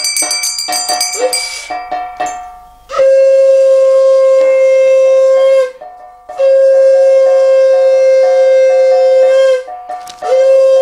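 Conch shell (shankha) blown in three long blasts of about three seconds each, a steady hooting tone with a short upward swoop at the start of each blast. A small hand bell rings at the start and dies away over the first two seconds.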